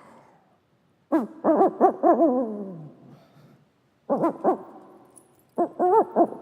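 Human vocal imitation of an owl: a woman's voice gives three groups of wavering, hooting cries, the longer ones sliding down in pitch at the end.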